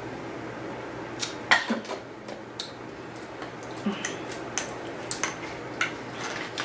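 Light clicks and knocks of a glass mason jar being handled and set down, a scattered handful of short sharp taps over a few seconds.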